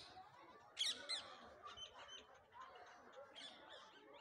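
Birds calling with short, high chirps, the loudest about a second in and a few more scattered after, faint over a low background hum.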